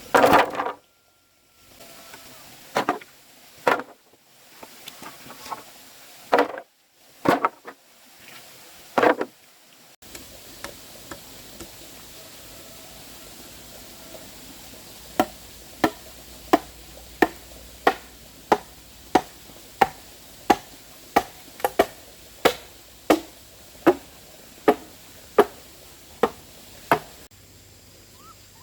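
Repeated chopping strikes of a blade into wood: a few uneven chops at first, then a steady run of chops about every three-quarters of a second.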